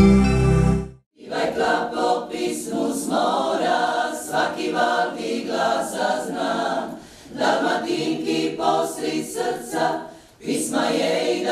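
Women's choir singing, several voices together, pausing briefly twice between phrases. A logo jingle cuts off in the first second before the singing starts.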